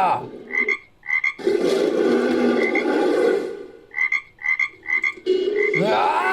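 Frog croaks in a made-up creature sound effect: short, high calls, two about half a second in and then three in quick succession around four seconds in, with a rough, low rasping sound filling the gaps between them.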